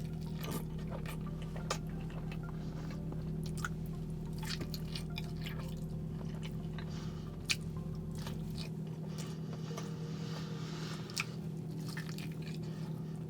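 Close-miked chewing and wet, squishy mouth sounds of someone eating, with irregular small clicks of the jaw and lips. A steady low hum runs underneath.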